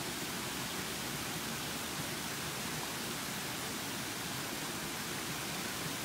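Creek water spilling in small falls over low rock ledges: a steady, even rush of water.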